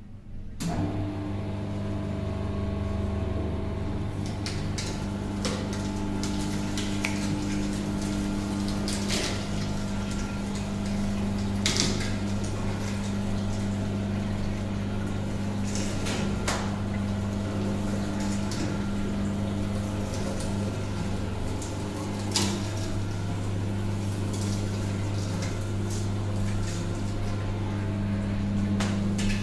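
Radix electric sugarcane juice machine switched on: its motor starts about half a second in and runs with a steady hum while the rollers crush a stick of sugarcane, with a few sharp cracks.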